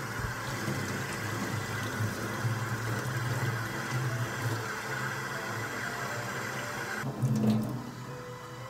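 Water running steadily from a washbasin tap over hair being washed in the sink; the running water stops suddenly about seven seconds in, followed by a brief louder sound.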